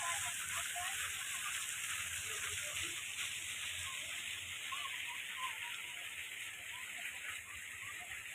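Steady splashing rush of a small garden jet fountain, with faint scattered voices in the distance.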